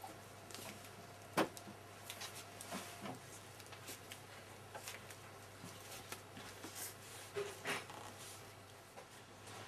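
Quiet handling sounds of small objects at a table: scattered light clicks and rustles, with one sharper click about a second and a half in, over a steady low hum.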